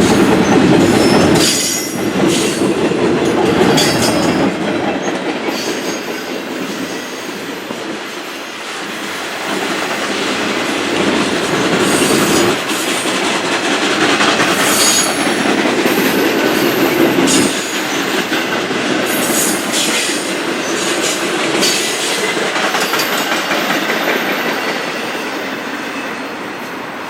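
The Ringling Brothers circus train rolling past: a steady rumble of rail cars with the wheels clacking over rail joints and repeated high wheel squeal. The noise eases off toward the end.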